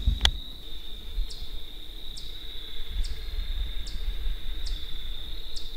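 Insects trilling: a steady high continuous trill, with short higher chirps repeating evenly a little under once a second over it. A sharp click sounds just after the start, over a low rumble.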